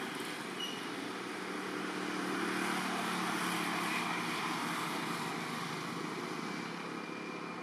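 A motor vehicle passing on a nearby road: a steady engine hum and tyre noise that swells about a third of the way in and then slowly fades.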